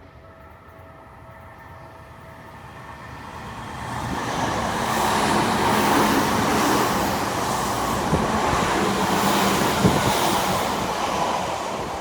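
Electric commuter train approaching and passing close by at a level crossing, getting louder from about four seconds in, with a steady low hum under the rush of wheels on rail, and easing off near the end.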